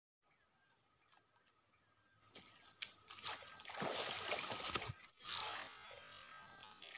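A snakehead striking a floating soft frog lure in a shallow ditch gives a short burst of splashing and thrashing at the surface about four seconds in, over faint steady background noise.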